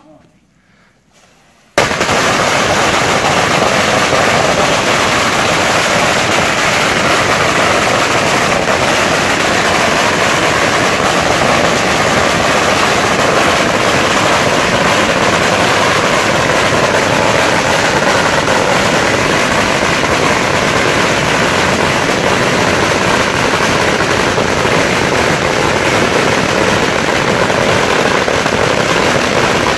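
A huge roll of Chinese red firecrackers going off in one continuous, rapid crackle. It starts suddenly about two seconds in after a brief quiet and holds steady and loud throughout.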